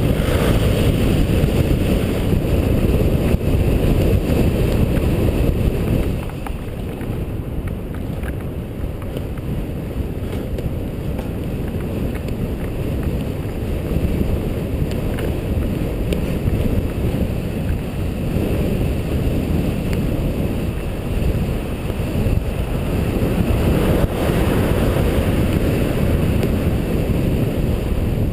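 Steady wind buffeting and road rumble on the microphone of a GoPro HD Hero mounted on a moving vehicle. The rumble eases a little about six seconds in and builds again near the end.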